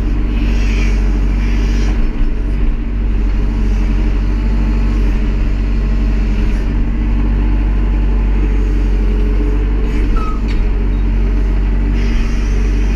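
Tractor-backhoe engine running steadily.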